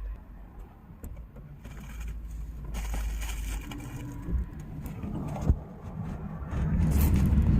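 Low steady rumble of a car heard from inside the cabin, with a few sharp clicks and knocks. It gets louder near the end.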